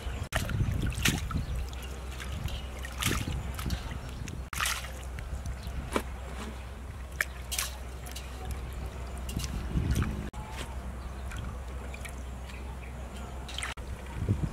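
Hands swishing lettuce and herb leaves through a steel basin of water: irregular splashes, drips and trickles over a low steady rumble.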